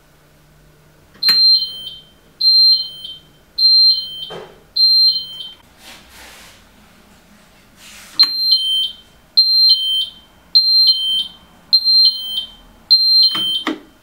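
Piezo siren of a Kason coolroom entrapment alarm, set off by its panic button, sounding in loud repeated two-tone pulses, each a high note stepping down to a slightly lower one, about one a second. It stops for a couple of seconds midway, then starts again. The alarm signals that someone is trapped inside the coolroom or freezer.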